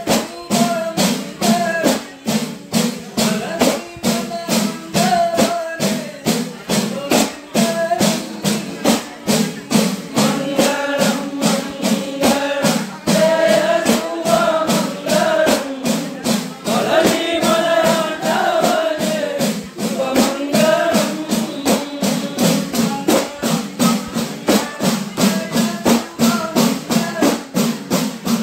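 Malayalam kavadi chinthu devotional song, the closing mangalam: men singing through a PA over a steady, fast beat of udukku hand drums and jingling percussion.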